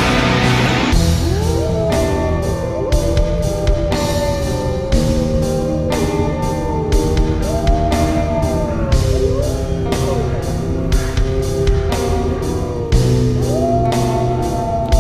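Rock music: a drum kit keeps a steady beat under guitars, with a lead melody sliding up and down in pitch. A dense wash of sound cuts off about a second in.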